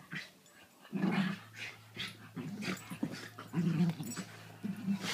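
Dogs growling in play as they wrestle over a toy: a series of short, low growls, roughly one a second.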